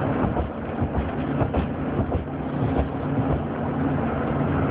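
A young child snoring heavily through a clogged nose, a rough irregular rattle in the breathing, over a steady low hum.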